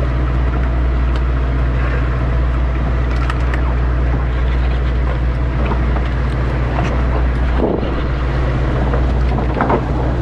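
Steady low drone of a sportfishing boat's engine running, with water and deck noise over it.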